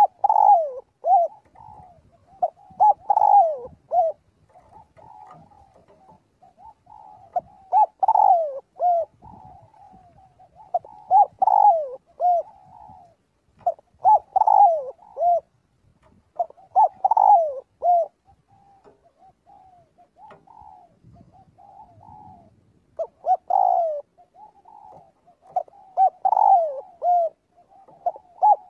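Spotted dove cooing: short phrases of a few low, falling coos, repeated every three seconds or so, with fainter cooing in the gaps.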